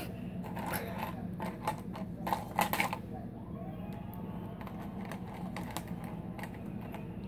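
Ice cubes clicking and rattling in a plastic cup as a cat paws at them, a quick cluster of clicks in the first three seconds, loudest about two and a half seconds in. A steady low hum runs underneath.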